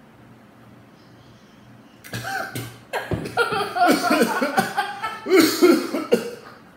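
A man coughing and sputtering after choking on a gulp of his drink, breaking out about two seconds in with loud, irregular coughs and gasps. A child laughs along with it.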